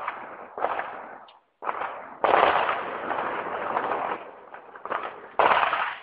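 Gunfire in a city: several loud shots, each with a long echoing tail, the loudest about two seconds in and again near the end.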